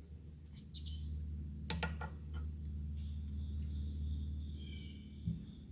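A few light clicks and taps of a steel stud being handled and set into a machined counterbore, over a steady low machine hum.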